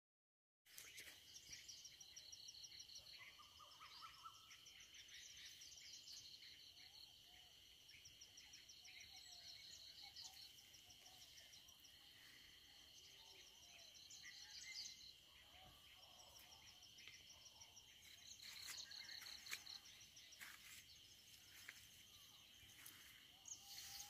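Faint forest ambience: a steady high-pitched insect drone, with repeated rapid bird-like trills and scattered chirps and calls over it.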